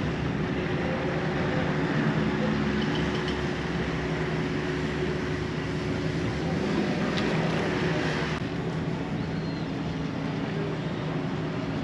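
A sailing yacht's engine running steadily as the boat motors through the harbour, a low even hum under a rushing of wind and water.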